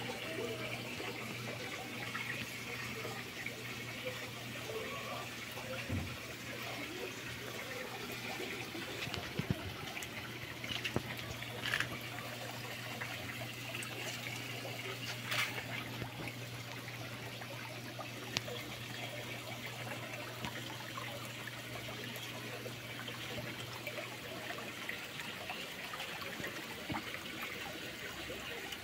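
Water trickling steadily into a garden fish pond, with a low steady hum underneath that stops near the end.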